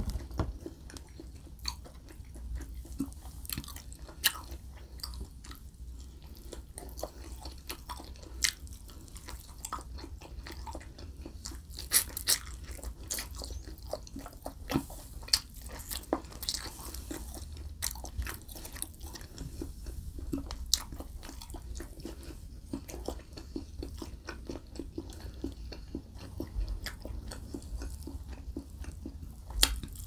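Close-miked eating of barbecued pork ribs: wet chewing and biting with irregular sharp mouth clicks and smacks, a few louder than the rest, and meat being torn from the bone by hand. A low steady hum sits underneath.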